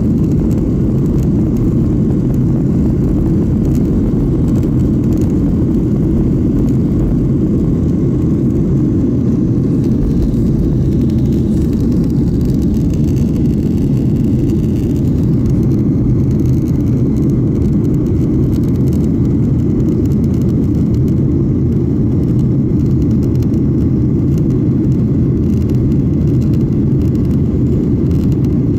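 Jet airliner's engines at takeoff power, heard from inside the cabin over the wing: a loud, steady, deep rumble through the takeoff roll, lift-off and initial climb.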